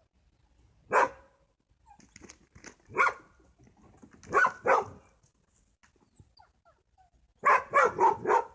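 Dog barking in play: single barks about one and three seconds in, a pair halfway through, and a quick run of four near the end.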